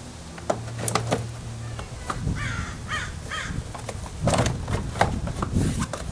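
Plastic door trim panel knocking and clicking against the door as it is hung on its tabs and lined up, with three short rasping sounds about halfway through.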